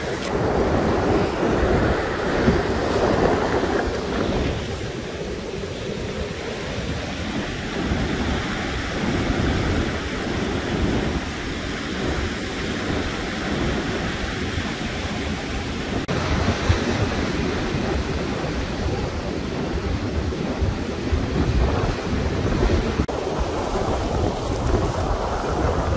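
Ocean surf washing up a pebble beach, with wind buffeting the microphone in uneven gusts.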